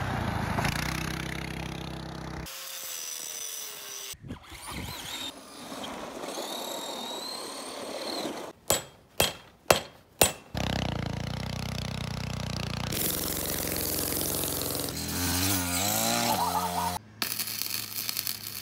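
Workshop power tools running in a series of short, abruptly cut clips, with four sharp metal strikes in quick succession near the middle.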